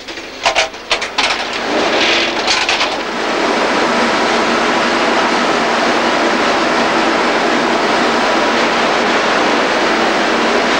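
Factory machinery: a few irregular clattering knocks for the first three seconds, then a loud, steady running noise with a faint hum through it.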